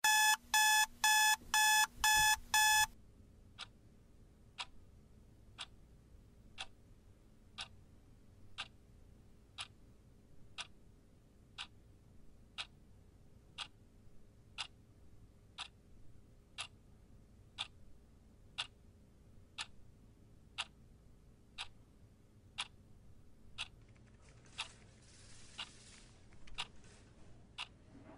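Electronic alarm clock beeping, a rapid run of loud pitched beeps that stops after about three seconds. Then a clock ticking steadily, about once a second.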